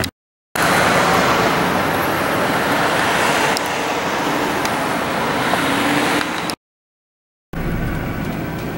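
Road noise of a moving car heard from inside the cabin, a steady rush with passing traffic. The sound drops out to dead silence twice, briefly: just after the start and again about three-quarters of the way through.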